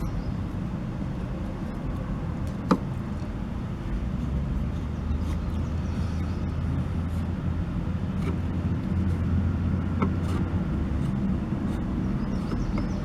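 Low steady rumble of road traffic that swells from about four seconds in until about ten and a half seconds, with a single sharp tap about three seconds in.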